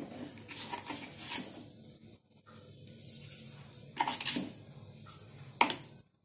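Kitchen dishes and utensils clinking and clattering as they are handled, a run of knocks in the first second and a half, more around four seconds in, and the sharpest clank about five and a half seconds in.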